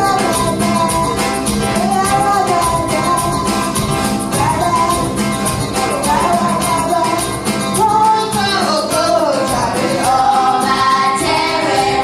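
Worship music with a singing voice carrying a melody over a steady beat.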